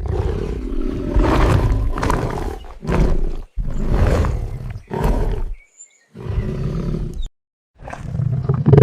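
Bengal tiger roars, about five in a row, each cut off abruptly by a brief silence between them.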